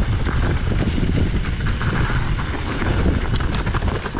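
Wind buffeting the camera microphone while a mountain bike rolls down a dirt and gravel trail, its tyres crunching over the surface. Small knocks and rattles from the bike come in the last second as it reaches rocks.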